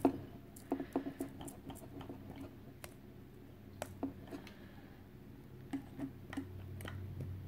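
Faint, scattered light clicks and taps from a plastic measuring spoon and a clear plastic cup as graham cracker crumbs are spooned and sprinkled in, over a faint low hum.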